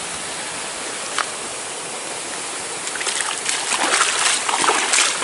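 Steady rush of flowing river water, then from about three seconds in, irregular splashing as a person wades into the shallow river, growing louder.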